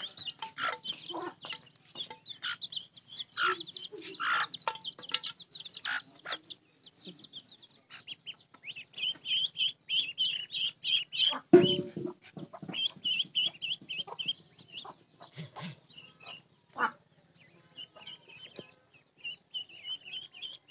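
Baby chicks and ducklings peeping, with many rapid, high-pitched cheeps running on throughout. There is a single louder thump about halfway through.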